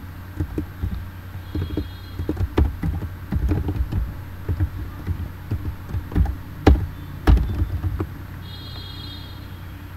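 Typing on a computer keyboard: irregular key taps, with two louder clicks about seven seconds in, stopping about eight seconds in. A steady low hum runs underneath.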